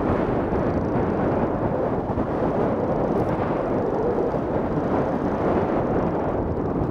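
Wind buffeting the microphone of a camera mounted on a hang glider in flight: a loud, steady low rumble with no pitch.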